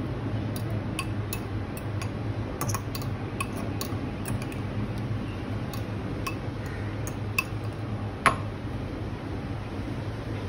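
A metal fork clinking and tapping against a small glass bowl while turning a ball in chocolate syrup: a dozen or so light, irregular clicks, one sharper clink about eight seconds in, over a steady low hum.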